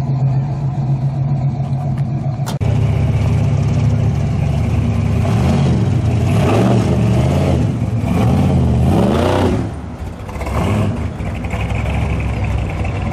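A steady engine rumble, then the supercharged V8 of a 1970s Chevrolet square-body pickup running at low speed and revved several times, rising and falling in pitch. Near the end it fades as the truck drives away.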